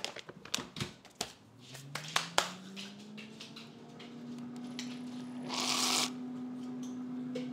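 A run of sharp clicks and rattles, then a small electric motor starts and its hum rises in pitch over a couple of seconds before settling into a steady tone. A brief hiss comes about five and a half seconds in.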